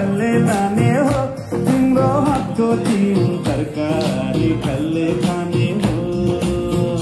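Music: a song with singing over instruments and a regular beat.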